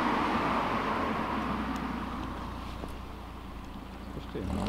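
A black Audi S3 hatchback drives away after passing, its engine and tyre noise dying down over about three seconds. Near the end another engine starts revving up, rising in pitch.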